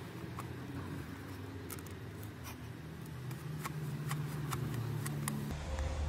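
Steady low room hum with about half a dozen light, sharp clicks scattered through it. Near the end it cuts abruptly to a louder low rumble, like wind on the microphone.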